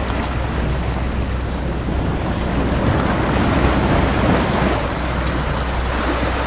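Sea swell washing and splashing against the rocky shoreline, with wind rumbling on the microphone. A surge builds about three seconds in, as the swell grows heavier.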